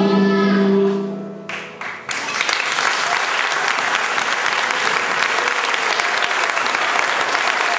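The music ends on a held chord that fades away about a second in. Audience applause starts about two seconds in and goes on steadily.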